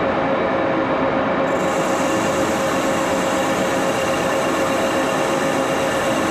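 Axelson engine lathe running, its spindle turning a heavy collet-closer body, with a steady gear whine over the running noise. A higher hiss joins in about a second and a half in.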